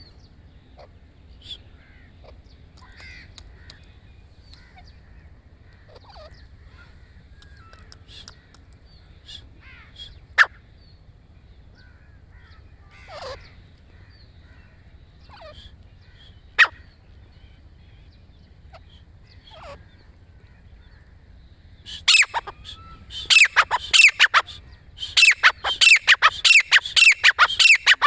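Grey francolin calling: a couple of single sharp notes, then near the end a loud, rapid run of repeated shrill notes, its ringing song.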